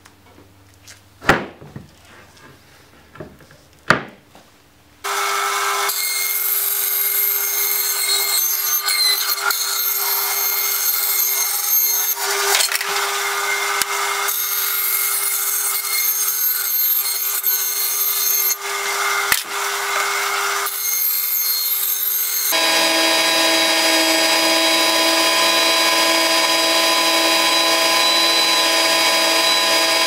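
A few light knocks of wood being handled and set down on a bench, then a bandsaw starts about five seconds in and runs loud and steady, cutting a thin wooden template board. About 22 seconds in it gives way to an oscillating spindle sander running steadily, sanding the template's edge.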